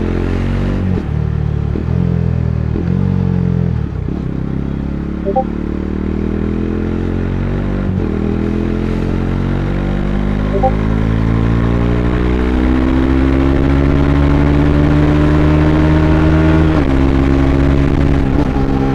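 Bajaj Dominar 400's single-cylinder engine, heard from on board the bike, running through several quick gear changes in the first few seconds. It then pulls in one gear with the revs climbing slowly and steadily, and changes gear again near the end.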